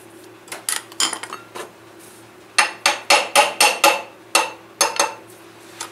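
Sharp metal-on-metal taps with a brief ring, from a tool knocking on steel parts of a Mercedes M110 engine's bottom end during teardown. A few scattered taps come first, then a quick run of about seven in the middle, then a few more.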